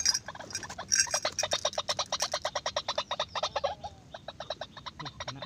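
An animal calling: a fast, even train of short, sharp notes, about nine a second, with a brief break about four seconds in.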